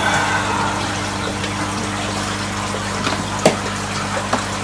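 Pump and water running in a koi fry tank: a low steady hum over a wash of moving water, with one click about three and a half seconds in.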